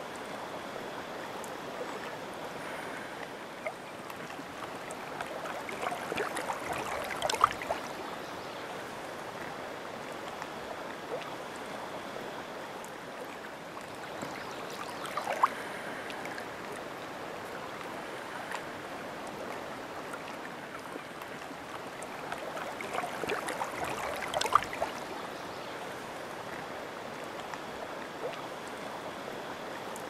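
Shallow lake water lapping and trickling along a muddy shore, a steady wash broken by three brief bouts of splashing.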